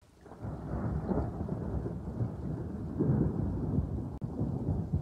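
A deep, noisy rumble like rolling thunder, fading in over the first half second and then holding steady, with a brief drop just past four seconds.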